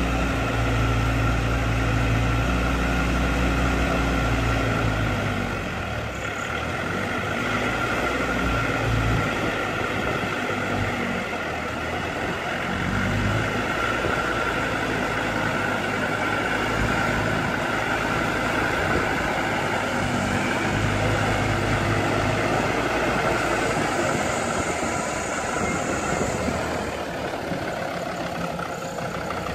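Land Rover Defender's engine running while its winch drags the vehicle up a steep snowy slope, with a steady whine over the engine. The engine's low hum is strong for the first few seconds, then drops and rises again unevenly.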